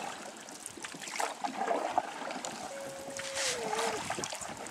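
Canoe paddle strokes: the blade dipping and pulling through river water with splashing and dripping along the hull. About three seconds in a short steady hum sounds and then falls in pitch.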